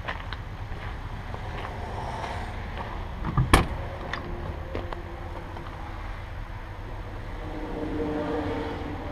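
Driver's door of an International 4800 dump truck being opened: the latch releases with one sharp click about three and a half seconds in, over a steady low rumble.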